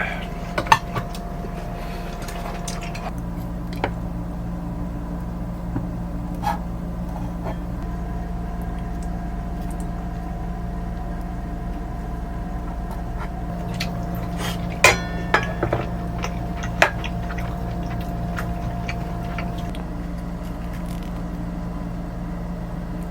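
Steady machine hum with a level tone that cuts out and comes back, and a few sharp clinks of dishes and cutlery, loudest between about 15 and 17 seconds in.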